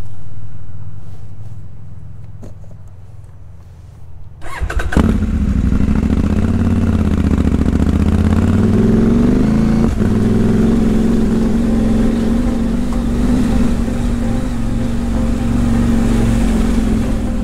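A low, deep tone fades away over the first few seconds. About four and a half seconds in, a KTM adventure motorcycle's engine cuts in suddenly and runs on under way, its pitch rising and falling with the throttle, with a single sharp click partway through.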